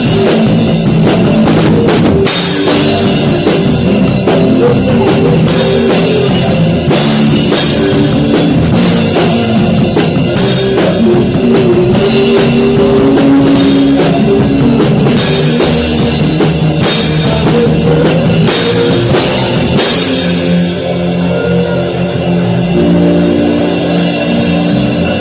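Live worship band playing a rock-style song: an acoustic drum kit with cymbals and bass drum drives it, over electric guitar, bass guitar and keyboard. About 20 seconds in the drums stop, leaving sustained keyboard and guitar chords ringing.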